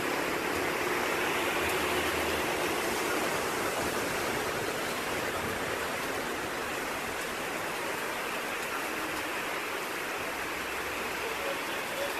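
Torrential rain pouring down onto a flooded street, a steady, even rushing hiss.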